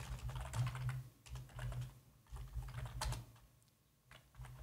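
Computer keyboard typing in quick runs of keystrokes, with a short pause near the end.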